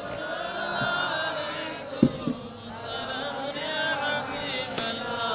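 A group of men chanting together, many voices overlapping. A short knock about two seconds in.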